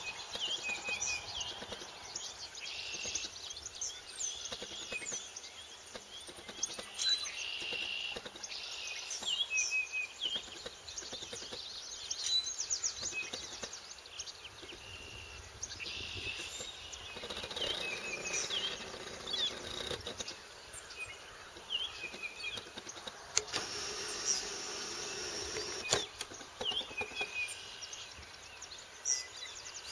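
Dawn chorus of many bird species singing and calling over one another, a dense stream of high chirps and short repeated trills.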